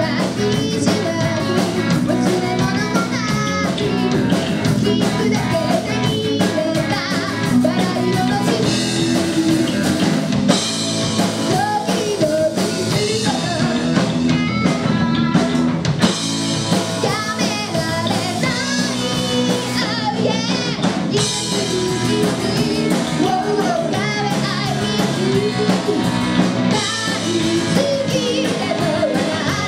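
Live rock band playing: drum kit, electric guitar and a singer's lead vocal, loud and continuous.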